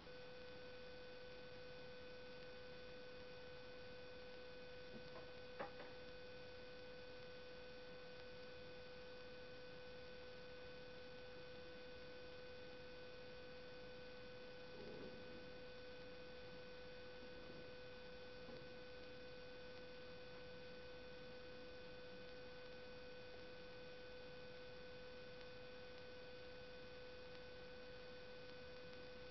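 A faint, steady electrical hum with a clear mid-pitched tone and fainter higher tones over low hiss, with a single click about six seconds in.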